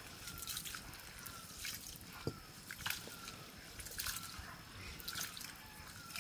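A hand sloshing and squeezing soaked rice in water in a metal pot, making irregular wet splashes and drips.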